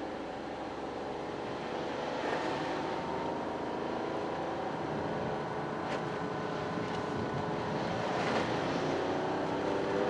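Toyota GR Yaris's turbocharged 1.6-litre three-cylinder engine running on the move, with road noise. The engine note drifts slowly in pitch.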